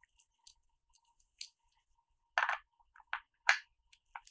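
Metal camera-rig parts handled and slid together, a NATO rail clamp going onto a NATO rail: a handful of short scrapes and clicks, the loudest a scrape about two and a half seconds in and a click about a second later.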